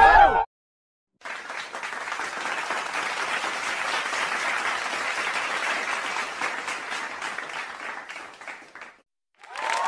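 A crowd applauding: dense clapping that swells over the first few seconds and dies away near the end.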